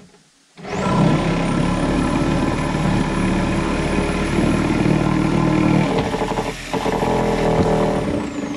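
A motor starts abruptly and runs loudly for about seven seconds, its high whine spinning up at the start and winding down as it stops near the end.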